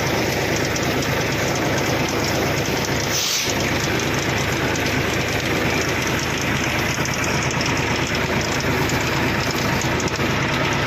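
New Holland 3600 tractor's diesel engine running steadily under way, heard from on board the tractor as it drives across a harvested paddy field.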